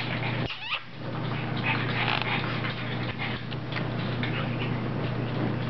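A pug puppy and an adult pug play-fighting: scuffling, with scattered clicks of claws on a wooden floor and a short rising squeak about half a second in.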